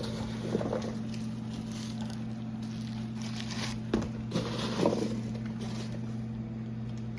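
Handling noises from unboxing slime packaging: a few short rustles and a sharp click about four seconds in, over a steady low electrical hum.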